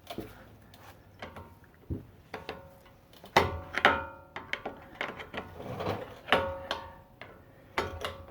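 Hammer striking a steel punch to drive out a front brake caliper retaining pin, several sharp metallic blows, each leaving a brief ringing tone.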